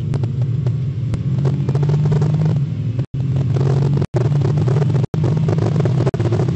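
Nissan GT-R engine running at a steady low pitch while the car drives slowly, heard from inside the cabin. The audio cuts out briefly about once a second.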